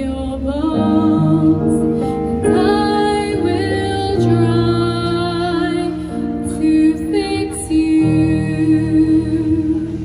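Women's choir singing long held chords, with a solo female voice through a microphone over them.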